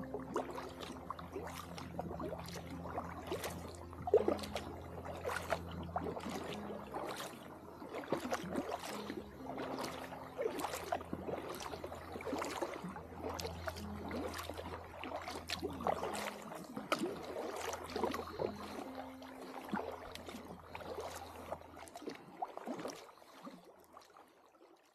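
Kayak paddle strokes: the blade dipping and splashing in regular strokes about once a second, with water trickling off it, over a faint low steady hum. The strokes fade out near the end.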